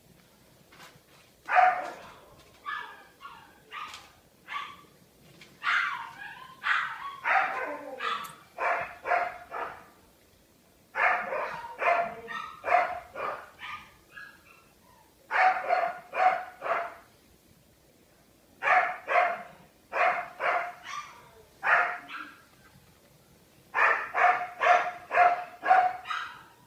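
A dog barking in about six bouts of several quick barks, with pauses of a second or two between bouts.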